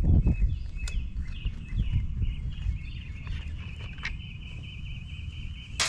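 A bird calling a fast, even series of short high chirps, about five or six a second, starting about half a second in. Under it there is a low rumble, loudest at the start, and a few light clicks.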